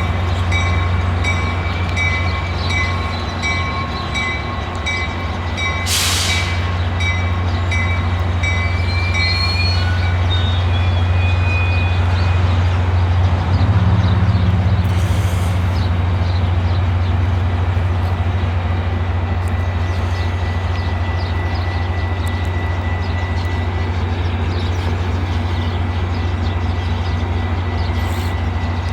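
Metra MP36PH-3S diesel locomotive running with a steady low drone as the train backs slowly, while a bell rings in even strokes for the first ten seconds or so. About six seconds in there is a short hiss, and faint squeals follow a few seconds later.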